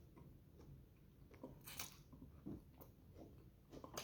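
Faint chewing of a mouthful of food, a few soft wet mouth smacks with one sharper one just under two seconds in.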